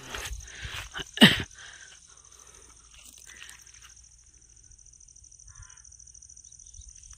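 A steady high-pitched insect drone from the forest. About a second in there is a single loud thump.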